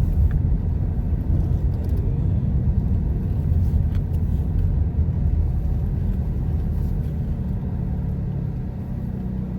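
Steady low rumble of a car moving, engine and road noise heard from inside the cabin.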